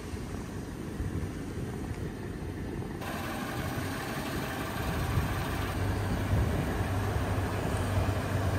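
Toyota Tundra pickup's engine running at low revs as the truck crawls up a dirt ramp to flex its suspension. The hum grows louder and steadier about halfway through.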